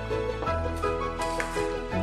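Slow instrumental background music with held notes over a sustained bass.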